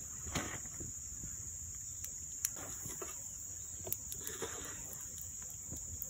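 A steady high-pitched insect drone, with a few sharp light clicks and knocks from a knife and a frying pan being handled over a campfire.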